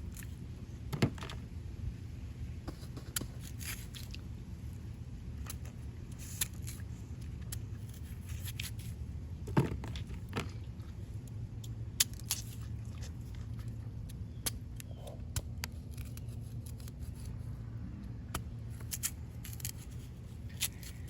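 Sugarcane cracking and snapping: irregular sharp clicks and snaps, a few of them louder, over a steady low hum.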